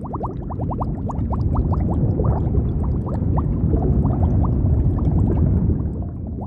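Underwater bubbling sound effect: a stream of bubbles, each a quick rising blip, over a low churning rumble of water. The blips come thick and fast at first and thin out later.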